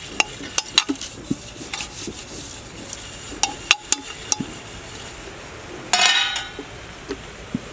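A hand rubbing oil over a stainless steel perforated steamer plate, with many light clicks and clinks against the steel. About six seconds in the steel plate clanks once and rings briefly as it is moved.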